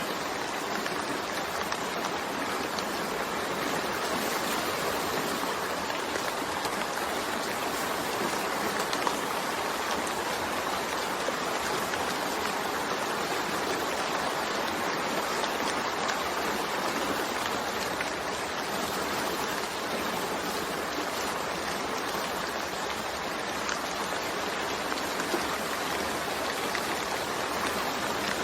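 Steady rain falling, a dense, even hiss of drops that keeps up without a break.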